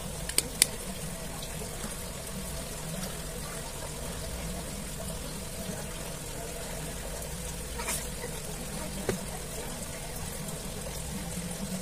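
Small plastic and metal clicks as smartphone parts are handled and fitted into a phone frame: two sharp clicks about half a second in, and two more around eight and nine seconds. A steady hum and hiss run underneath.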